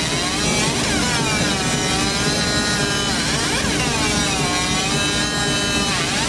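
Laser marking machine etching a steel block: a steady whine with many overtones from the galvo scanner, its pitch dipping and rising again every two or three seconds as the beam traces the pattern, over a constant low buzz.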